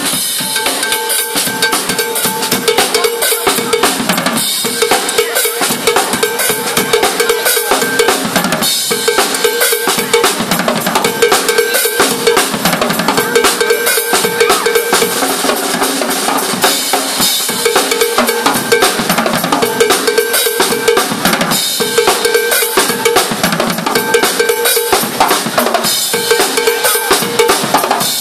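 Busker's acoustic drum kit played fast and hard: a dense stream of snare, bass drum and cymbal hits, with a ringing pitched note returning in short runs of about a second.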